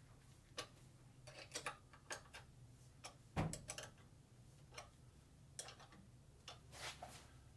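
Faint, irregular clicks and light metal knocks of a wrench tightening the pivot bolt on a seawater pump's mounting bracket, with one louder knock about three and a half seconds in.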